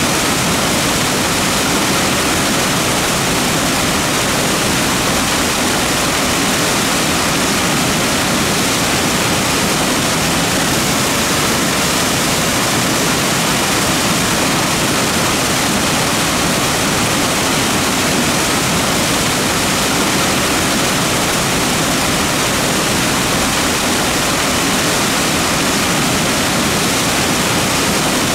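Creek water rushing over rocks, a loud, steady rush with no breaks.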